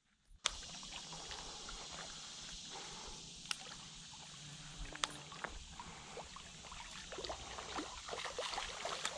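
Steady trickling and lapping of shallow water at the bank, starting suddenly about half a second in, with a couple of sharp clicks.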